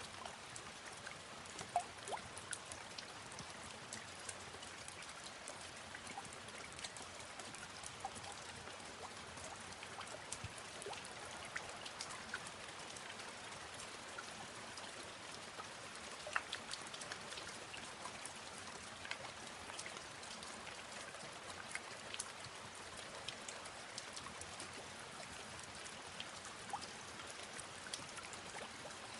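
Steady rain falling, with many individual drops tapping sharply close by.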